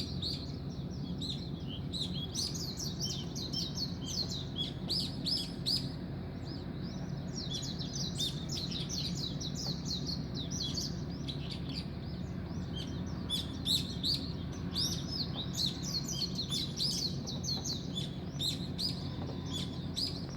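Dawn chorus of small birds: many short chirps and twitters, overlapping densely and without a break, over a steady low hum.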